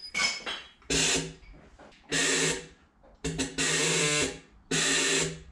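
Pressurised gas hissing out of a homemade nitrous-style injection setup in a series of short, sudden bursts, each with a buzzing hum under the hiss, the longest lasting about a second.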